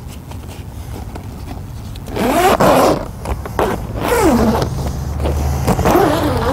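Heavy-duty number 10 zipper on a dome shelter's fabric cover door being pulled open in strokes: a rasp that rises and falls in pitch about two seconds in, again around four seconds and near the end. A steady low hum runs underneath.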